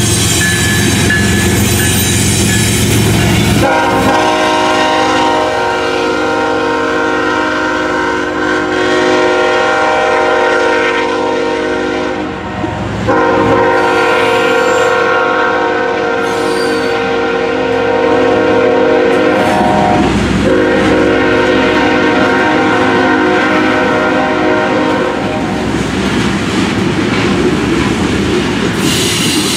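Diesel locomotive of a BNSF freight train rumbling past, then the train's air horn sounding three long blasts of its multi-note chord as covered hopper cars roll by with rolling wheel clatter on the rails.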